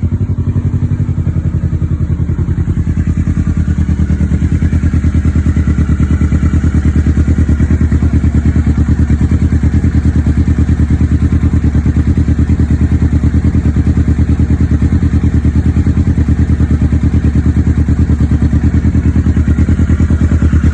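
Kawasaki Ninja 650 parallel-twin engine idling steadily through an aftermarket Two Brothers Racing carbon full exhaust, warming up after the install. It settles a little in the first couple of seconds, then holds an even, pulsing idle with no revs.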